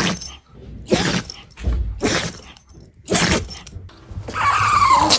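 A dog sneezing four times, about a second apart, each a short sharp burst. Near the end comes a drawn-out vocal sound falling in pitch.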